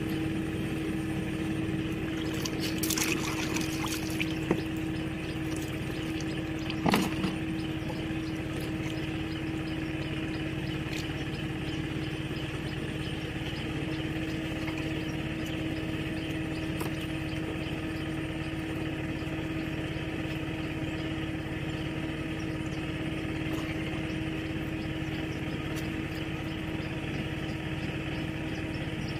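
A small engine runs steadily with a constant hum, under water sloshing and dripping as a fish-trap net is lowered into a canal; a couple of louder splashes come about 3 and 7 seconds in.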